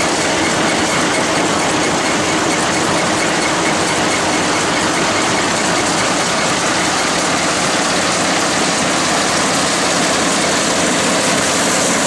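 Kubota M7040 diesel tractor running while it pulls an Allis-Chalmers pull-type combine harvesting rice. The engine and the combine's machinery make a steady, dense mechanical noise.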